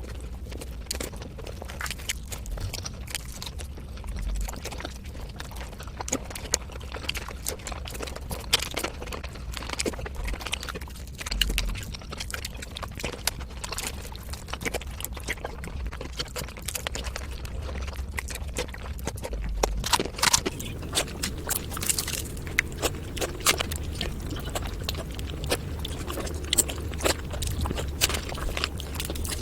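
Close-miked eating sounds of panta bhat, watery fermented rice: fast, dense chewing and lip-smacking clicks, many a second, as in sped-up footage.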